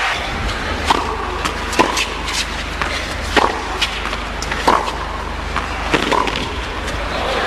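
Sharp, short knocks of a tennis ball, bounced on the hard court and struck by racquets, coming roughly every one to one and a half seconds over a steady background of arena noise.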